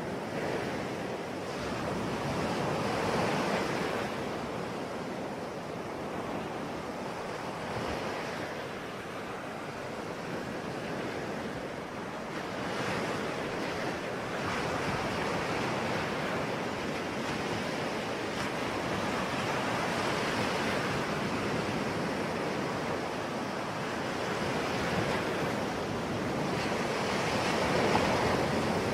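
Ocean waves breaking and washing on the shore, a continuous rushing with slow swells every several seconds, the largest near the end.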